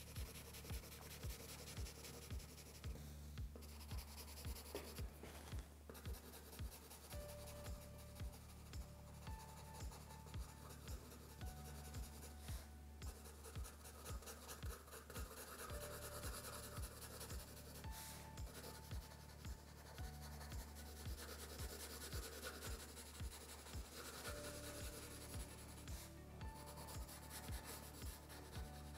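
Graphite pencil hatching on drawing paper: a faint, steady scratching of quick short strokes. Under it runs quiet background music with a steady low beat of about two thumps a second.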